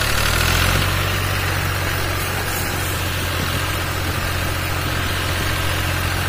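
Fiat 480 tractor's three-cylinder diesel engine running steadily while the tractor is driven, a little louder in the first second and then holding an even note.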